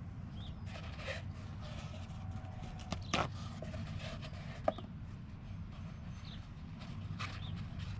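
Steady low outdoor rumble with short, high, falling bird chirps repeating every second or two, and a few sharp knocks and clicks of handling, the loudest about three seconds in and near five seconds in.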